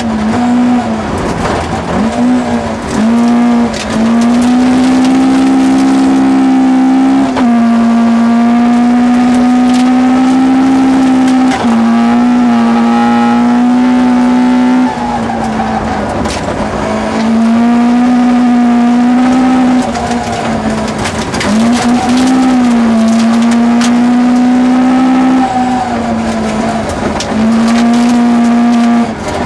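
Toyota Corolla GT 1600 rally car's engine heard from inside the cabin, running hard at high revs, held steady for a few seconds at a time with brief sharp dips in revs every few seconds. Scattered clicks sound over it.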